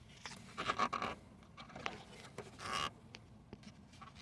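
Hands working a rubber grommet and hood release cable through a hole in the car body: short scraping rubs about a second in and again near three seconds, with a few light clicks between.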